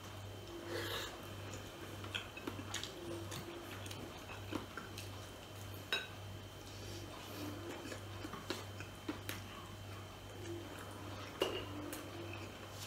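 A man eating with his hands: soft chewing and mouth sounds with scattered small clicks of fingers and food on the plate, over a steady low hum.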